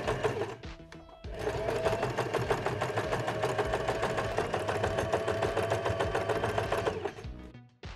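Domestic sewing machine (TC-1212) zigzag-stitching felt appliqué letters: a short run of stitches, a brief pause around a second in, then a steady run of rapid, even stitches for about six seconds that stops near the end.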